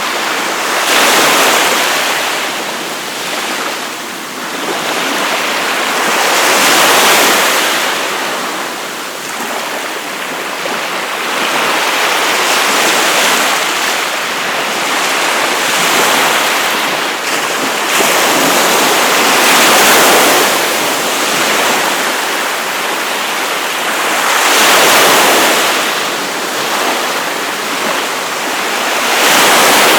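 Waves breaking and washing up on a beach, a steady rushing surf that swells and eases every few seconds as each wave comes in.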